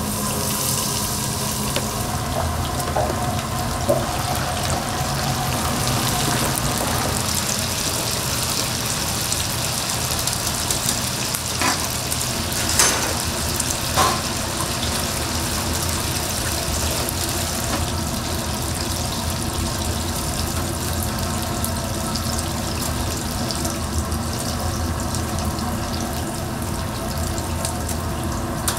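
Hot oil sizzling in a deep fryer as battered foods fry: a steady hiss over a low hum, with a few sharp clinks of utensils about four seconds in and again around twelve to fourteen seconds.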